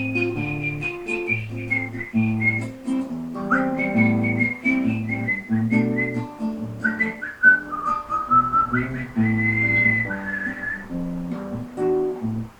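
Instrumental intro of a slow, gentle xote: a whistled melody of held notes that glides down and back up, over acoustic guitar chords and a steady bass line.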